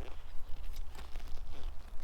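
Irregular rustling, scraping and small knocks of hands digging through dry soil and handling potatoes at harvest, over a steady low rumble.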